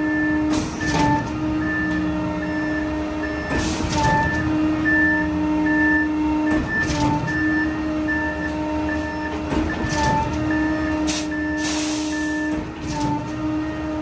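A concrete mixer truck and concrete pump running: steady diesel engine hum, with a knock about every three seconds as the pump strokes. A beeper sounds in quick repeating beeps throughout. A short burst of air hiss comes near the end.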